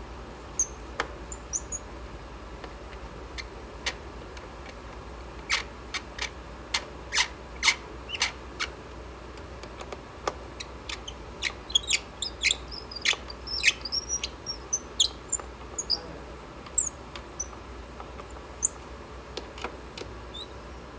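Irregular clicks and small taps of screws being set back in and turned in by hand on a CNC router frame. Short high squeaks come in among the clicks around the middle.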